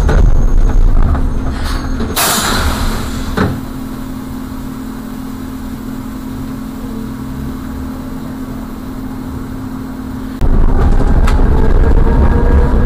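Car driving noise heard from inside the cabin: loud low road and engine rumble, a short hiss about two seconds in followed by a click, then a quieter steady engine hum while the car waits, until the loud driving rumble cuts back in abruptly near the end.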